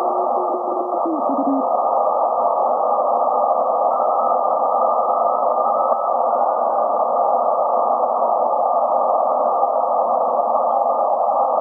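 Collins 51S-1 receiver's speaker hissing steadily with band noise, squeezed into a narrow, muffled range by its filter, while the tuning knob is turned. A low steady whistle at the start slides down in pitch and stops about a second and a half in as the dial moves off it.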